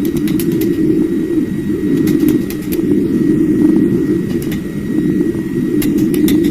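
A steady, loud, low roar with a faint high whistle over it and scattered sharp ticks.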